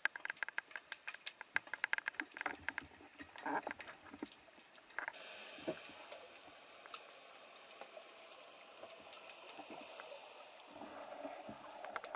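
Underwater clicking and crackling, irregular sharp clicks for the first few seconds, then giving way about five seconds in to a faint steady hiss with only an occasional click.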